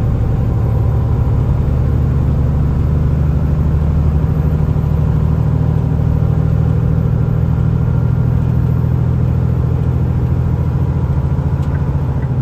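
Semi truck's diesel engine droning steadily at highway cruising speed, heard inside the cab, with tyre noise from the wet road underneath.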